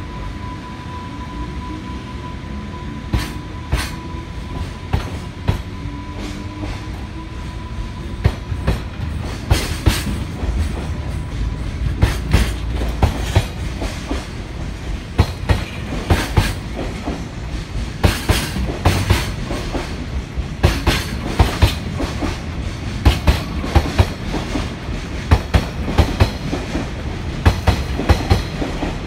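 Container wagons of a freight train rolling past close by: a low rumble with sharp wheel clicks over the rail joints that come closer and closer together, as the train gathers speed.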